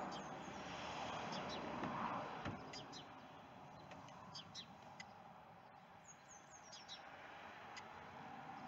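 Small birds chirping in short, high calls, several in quick runs. Under them is a rustling noise for the first couple of seconds, then a soft low thump about two and a half seconds in.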